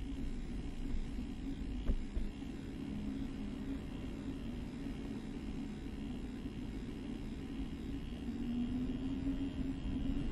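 A vehicle running steadily, its hum rising slightly in pitch near the end, with a single knock about two seconds in.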